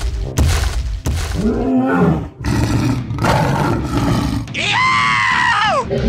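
Dubbed monster sound effects: a few heavy thuds in the first second, a low growl about a second and a half in, then a long, high, wavering roar that slides down in pitch near the end.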